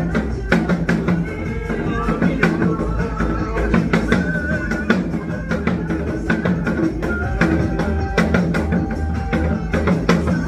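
Korean trot song music with a steady drum beat, played along on a janggu, the Korean hourglass drum, with dense, sharp stick strokes.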